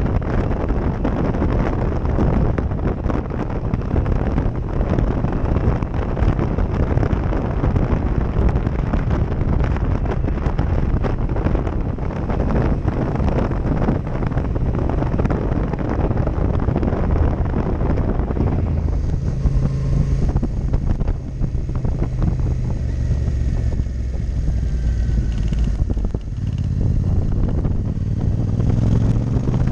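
Heavy wind buffeting on a GoPro action-camera microphone over a Yamaha MT-07 Tracer's parallel-twin engine on the move. About two-thirds of the way through the wind eases and the engine's low note comes through, rising in pitch near the end.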